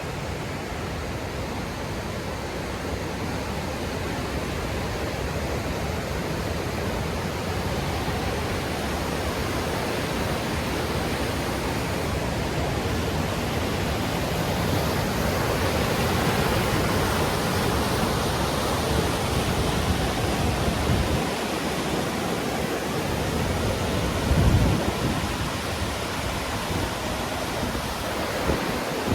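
Creek water rushing steadily over rocks. It grows a little louder toward the middle, and there is a brief low thump about 24 seconds in.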